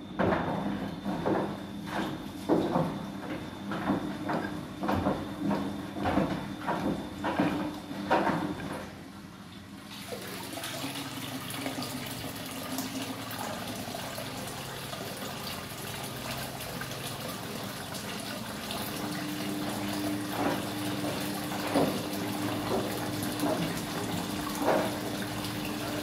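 Siemens front-loading washing machine running a wash, its drum tumbling the laundry with a steady motor hum and a regular slosh-thump about every 0.7 seconds. About ten seconds in this gives way to water rushing steadily into a floor drain, with a steady hum joining a little past halfway.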